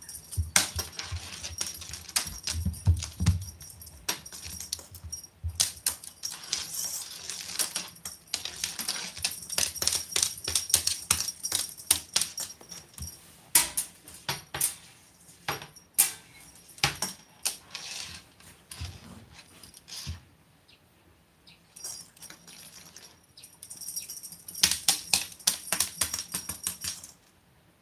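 A small bell on a cat's collar jingling in quick, irregular shakes as the cat runs and plays, with a short lull about twenty seconds in.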